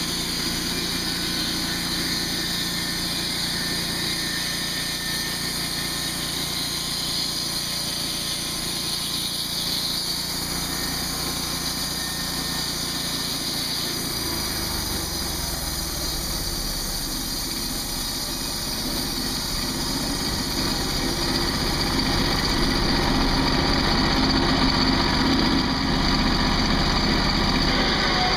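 Engine of a TimberGriz portable band sawmill running steadily as its band blade saws through red cedar. About halfway through the low engine note shifts as the cut finishes and a board drops off, and the sound grows louder near the end.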